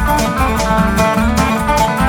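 Background music: plucked acoustic guitar with a steady bass beat, in a bluegrass or country style.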